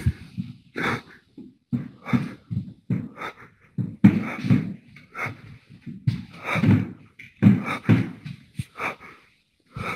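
A man's voice making short, breathy vocal sounds in quick irregular bursts, without clear words.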